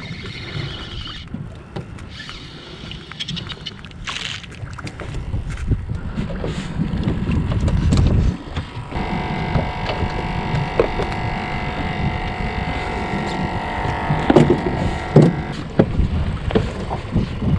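Wind buffeting the microphone on a small fishing boat, with a steady rumble that swells and eases. About halfway through, a steady high whine comes in for around six seconds, and near the end there are a couple of sharp knocks.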